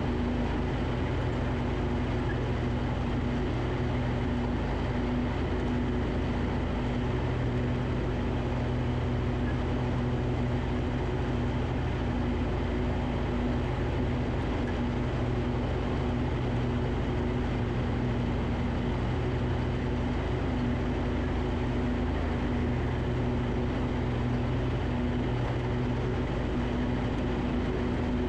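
Riding mower's gasoline engine running steadily at a constant speed, a continuous drone with no change in pitch or load.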